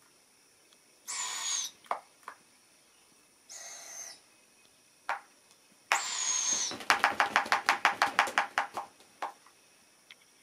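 Barred owl fledglings giving the raspy begging call of young barred owls three times, each a harsh hiss about half a second long with a thin whistle running through it. Right after the third call, one owlet flaps its wings rapidly, about ten beats a second for two seconds. There are a few short clicks between the calls.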